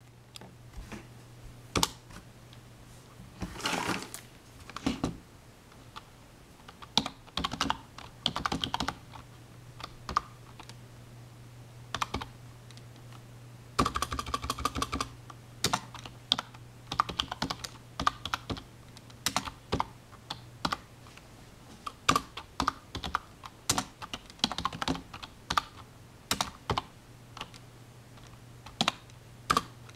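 Typing on a computer keyboard: irregular keystrokes in short spurts with pauses between, and a quick fast run of keys about fourteen seconds in, over a steady low hum.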